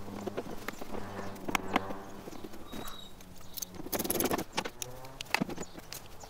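Irregular clicks and knocks of a socket wrench and metal parts as nuts are run onto a door handle's studs inside a truck door, with a denser clatter about four seconds in.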